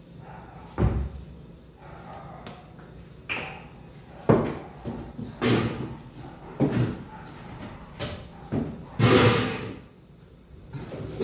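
Kitchen clatter: dishes, pans and cupboard doors or drawers being handled, a string of separate knocks and clunks about a second apart, with a longer rattling scrape about nine seconds in.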